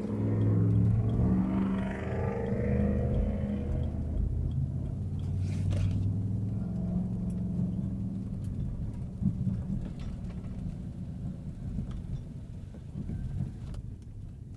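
Pickup truck engine and true dual exhaust pulling away, rising in pitch over the first few seconds, then settling into a steady low drone while cruising. The exhaust has a leak from a hole in one muffler where a crossover bracket broke.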